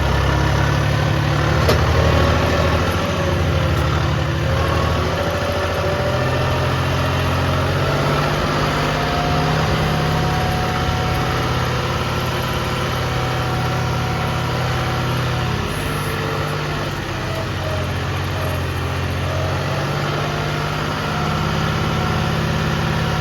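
New Holland Workmaster tractor's diesel engine running steadily while driving a round baler through hay, with a faint shifting whine over the engine drone.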